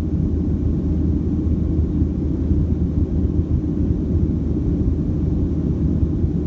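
Boeing 737-700 heard from inside the passenger cabin in flight: a steady low rumble of its CFM56-7B engines and the airflow, unchanging throughout.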